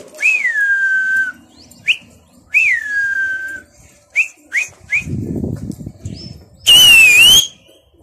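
A person whistling at a flock of pigeons in flight: two long falling whistles, several short rising chirps, and a loud, wavering whistle near the end. A short rush of low noise comes about five seconds in.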